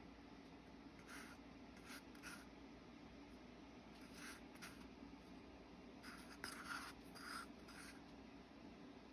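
Wooden craft stick scraping wet Resincrete mix out of a paper cup: a few faint, short scrapes, bunched together about six to seven and a half seconds in.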